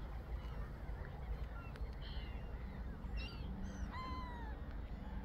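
Flock of waterbirds calling on a lake: scattered short, harsh calls, the loudest a single downward-falling call about four seconds in, over a low steady rumble.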